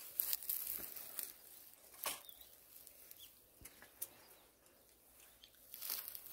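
Long-reach pole pruner working in the top of a lacquer tree, rustling and crackling through the twigs and young shoots, with a few sharp snaps from the cutting head.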